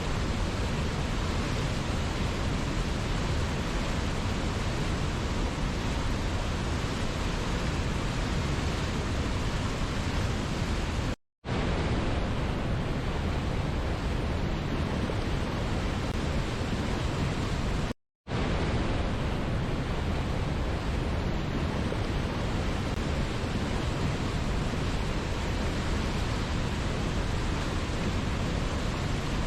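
Steady, even rush of falling water from a waterfall, with no changes in level, broken by two brief gaps of silence about eleven and eighteen seconds in.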